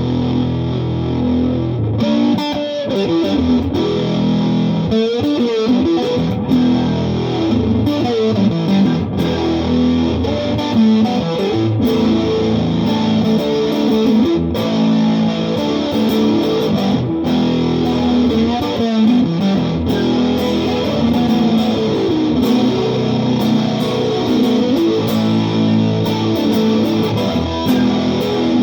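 Japanese Fender Telecaster electric guitar played through a Vox AC15 amp with a flanger pedal on, giving a spacey, sweeping tone to a run of notes and chords.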